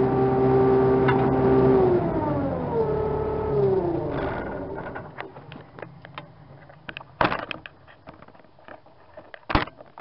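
Mustang MTL25 track loader's Yanmar four-cylinder diesel running steadily, then dropping in pitch in two steps and winding down until it fades out about halfway through. Two sharp knocks follow in the cab, one about three quarters of the way in and one near the end.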